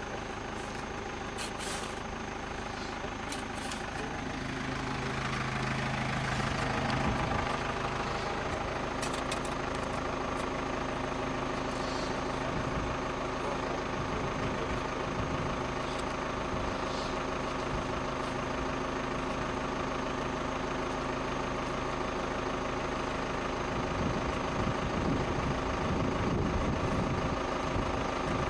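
An engine running steadily, with an even hum. It grows louder about five seconds in and then holds steady.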